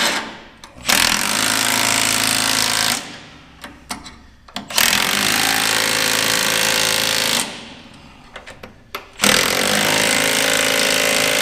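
Impact wrench hammering bolts tight, in three runs of about two to three seconds each with short pauses between.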